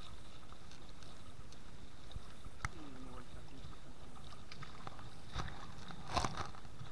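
Shallow river water flowing and lapping close by, a steady wash, with a few brief clicks and a louder splashy burst about six seconds in.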